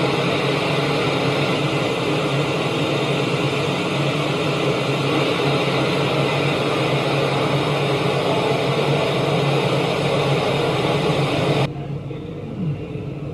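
Floodwater rushing and pouring down a flight of stairs into a station passage: a loud, steady rush of water. Near the end it cuts off suddenly to a much quieter background.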